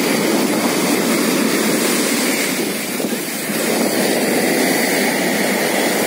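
Surf of a rough sea breaking and foam washing up over the sand: a steady rushing hiss that eases slightly about halfway through.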